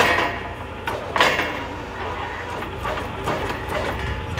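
Truck-mounted borewell drilling rig running steadily with a low hum, with a sharp clatter at the start and another about a second in.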